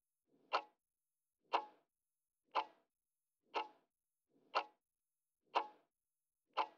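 Clock-tick sound effect counting down a quiz timer: seven short, sharp ticks, one each second.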